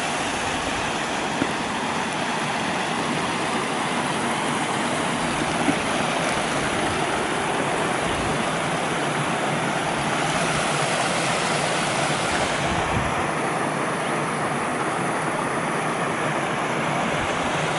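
Steady rush and splash of falling water from Bhimlat waterfall, reduced to a thin trickle in the dry season. A few low gusts of wind buffet the microphone.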